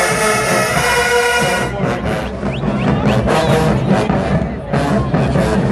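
HBCU marching band playing: brass holds a loud, bright chord for about the first second and a half, then the band drops into a rhythmic groove driven by low brass and drums.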